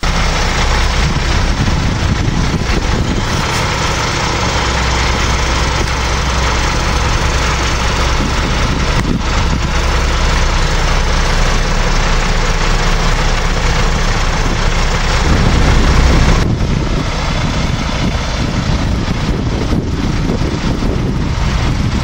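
Diesel engine of a rail multi-purpose vehicle running steadily with a low hum. About fifteen seconds in it swells louder, then drops to a rougher, less even sound.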